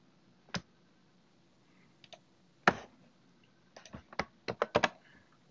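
Computer keyboard and mouse clicks: a few scattered single clicks, then a quick run of about eight key taps about a second before the end.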